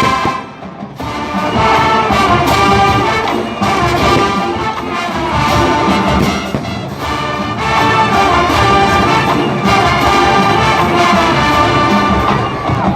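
College marching band playing at full volume, brass (trumpets and trombones) over drums, with a brief break about half a second in before the full band comes back in.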